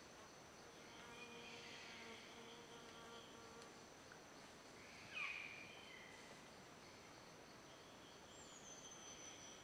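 Faint forest ambience: a steady high-pitched insect drone, with a brief sharp call falling in pitch about halfway through and a thin falling whistle near the end.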